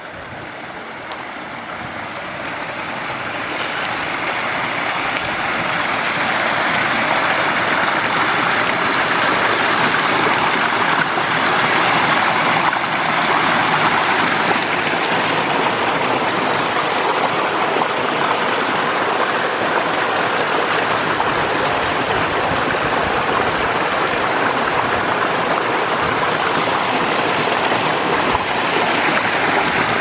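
Small stream rushing and splashing through its narrow, stony bed. The steady rush swells over the first six seconds or so, then holds.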